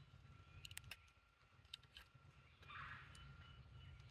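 Near silence, with a few faint clicks and light handling noise from a chainsaw sharpener being set against the saw chain.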